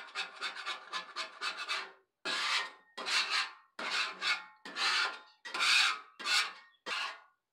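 Wide metal scraper rasping across a flat-top griddle, scraping off loose food bits. The first two seconds are quick short strokes, then about seven slower, separate strokes.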